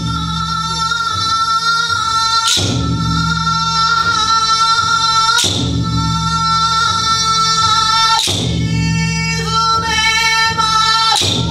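Men's group singing Awaji danjiri uta, a joruri-style festival float song: a high voice holds long, steady notes over the group's low sustained chorus. A sharp clap sounds roughly every three seconds.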